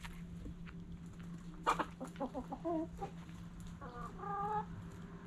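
Chickens clucking: a sharp tap and a quick run of short clucks about two seconds in, then one longer, drawn-out hen call about four seconds in, over a steady low hum.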